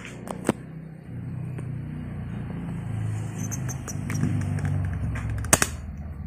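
A motor vehicle's engine rumbling, growing louder from about a second in and easing off near the end, with two sharp clicks, the louder one near the end.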